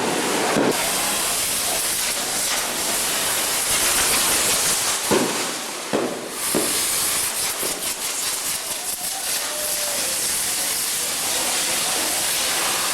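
A steady, loud hiss, with a few sharp pops and a spatter of fine crackles partway through.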